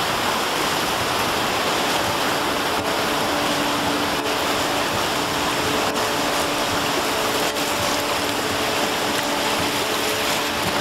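River in flood rushing past: a steady, even rush of fast floodwater pouring over a dam and through flooded trees.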